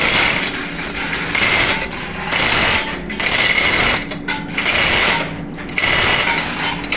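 Manual chain hoist being hauled hand over hand to lift an engine block, its chain and ratchet clattering in a run of pulls about once a second, over a steady drone of running engine-room machinery.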